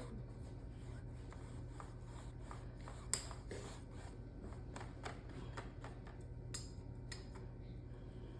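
Paintbrush working on canvas: light scratchy brushing with scattered small taps and clicks, one sharper click about three seconds in, over a steady low hum.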